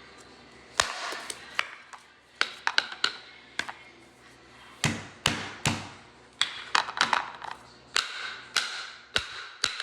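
A blind-box toy's packaging being handled and opened by hand: a string of sharp taps and clicks with short crinkly rustles between them, coming irregularly about once or twice a second.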